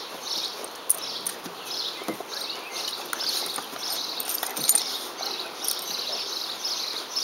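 Outdoor ambience in which a high chirp repeats about twice a second, with scattered clicks and scuffles from a bloodhound and a Lab puppy wrestling on a wooden deck.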